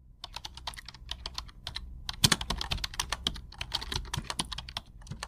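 Keyboard typing: a quick, uneven run of key clicks, several a second, over a low steady hum.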